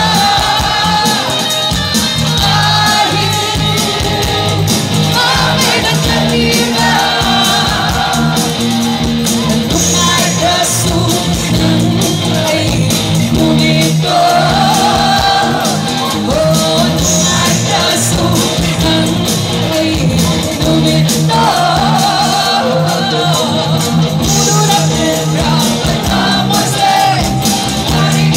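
Live band playing loud through a PA, with a woman singing lead over electric guitars, and the crowd shouting and cheering along.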